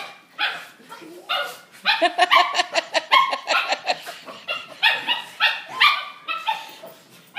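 Puppies whining and yipping in quick strings of short, high-pitched cries: separation cries of puppies missing their mother.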